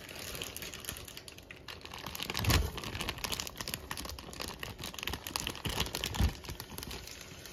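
Clear plastic zip-top bag crinkling as ground pork is pushed out of it into a pan of hot oil, with the crackle of the meat starting to fry. Two dull thumps come about two and a half and about six seconds in.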